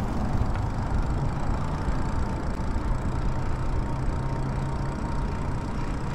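Wind rushing over the microphone and tyre noise from an electric bike riding steadily over asphalt, with a thin steady whine throughout.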